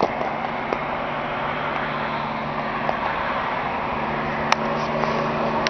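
A steady low engine hum under a broad rushing noise, with one sharp crack about four and a half seconds in.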